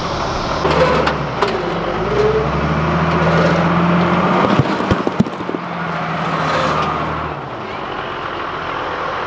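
Diesel engine of a Dresser wheel loader running as the machine drives forward, its note rising a little. A few sharp cracks come about five seconds in as the tires burst a row of pumpkins, and the engine note drops away near the end.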